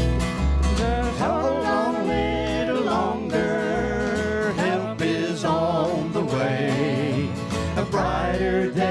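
Bluegrass-style gospel band playing, fiddle and acoustic guitars, with a woman and a man singing into handheld microphones.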